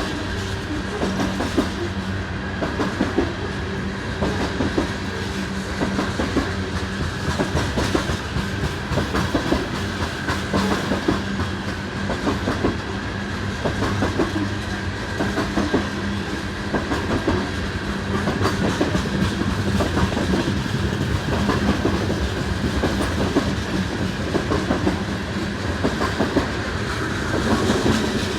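Freight train rolling past close by: a steady clatter of wheels over the rail joints, unbroken throughout.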